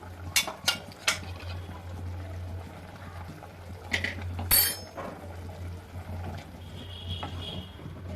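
Metal utensil clinking against a cooking pot as the boiling kuzhambu gets the ground pepper, cumin and fenugreek powder added and stirred in. Three quick taps come under a second in, then two louder knocks about four seconds in, the last one ringing briefly, over a steady low hum.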